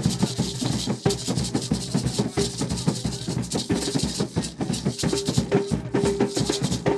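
Garifuna hand drums beaten in a fast, driving rhythm, with a pair of gourd shakers (sisira) rattling along.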